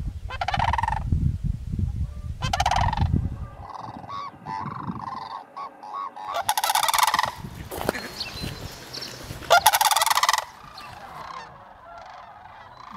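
Cranes calling: loud, rattling trumpet calls in separate bursts, the longest about 6.5 and 9.5 seconds in, with softer calls in between and trailing off near the end. A low rumble sits under the first few seconds.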